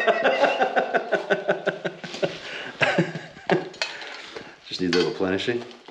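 Light metallic clinks and taps from a hand-shaped sheet-metal dome being handled, with a quick run of light ticks fading over the first two seconds and a couple of sharper knocks around the middle. A short burst of voice or laughter comes near the end.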